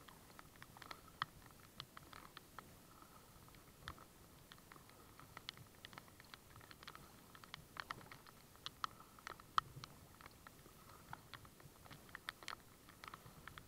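Water drops tapping close to the microphone: light, irregular ticks, several a second, some sharper than others.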